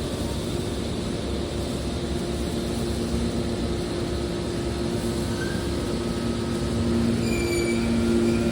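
Heavy machinery running with a steady rumble and hum, getting louder near the end, when a few short high squeals come in.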